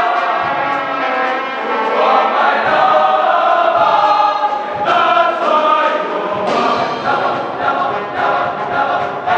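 Boys' school choir singing in harmony. About six and a half seconds in, a rhythmic beat of sharp strikes joins the singing.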